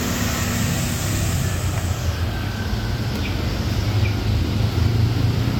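Steady low rumble with an even hiss behind it, and a couple of faint ticks from plastic toy figures being handled about three seconds in.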